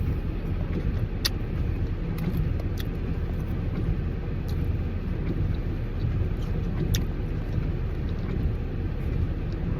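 Steady low rumble of a car idling, heard from inside the cabin, with a few light clicks now and then.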